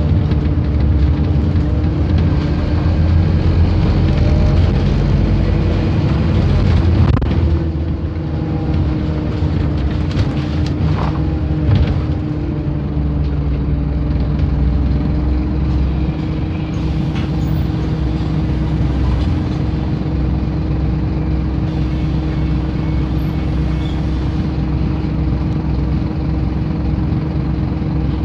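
Scania bus's engine and drivetrain running while the bus is under way, heard inside the passenger cabin as a steady low drone with a held hum. A few short knocks and rattles come partway through.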